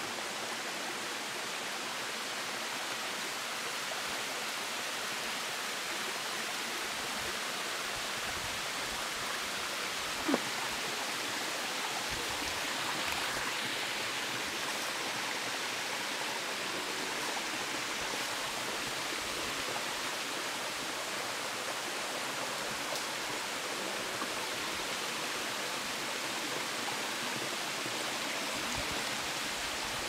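Waterfall rushing steadily, an even wash of falling water. One brief short sound cuts through about ten seconds in.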